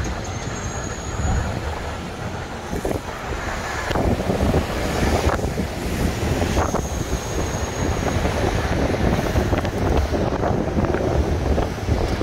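City street traffic noise with wind buffeting the microphone, heard from the open upper deck of a tour bus.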